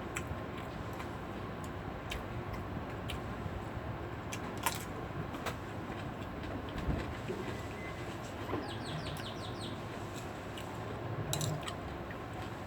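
Steady background noise with scattered small clicks, and a short run of high, quick chirps from a bird about nine seconds in.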